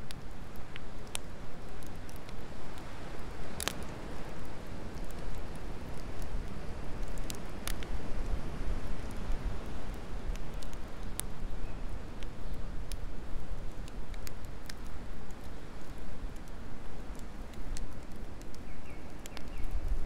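Wood campfire of stacked logs crackling, with sharp pops scattered through, a few standing out louder, over a steady low rumbling noise.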